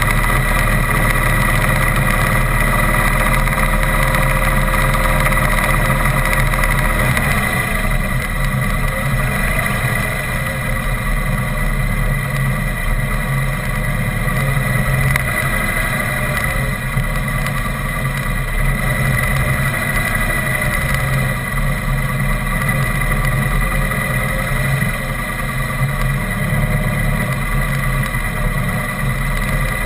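Engine of the vehicle carrying the camera, running steadily as it travels along the road, heard up close.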